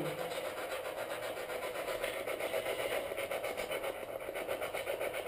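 Handheld spirit box (ghost box) sweeping through radio stations: a steady static hiss chopped into rapid, even pulses, about six a second, played back as investigators listen for spirit replies.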